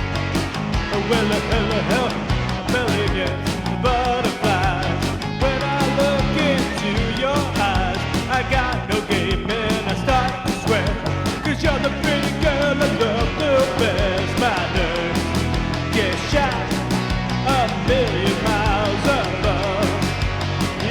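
Rock music: a full band playing with a steady beat, and a melody line bending in pitch over it.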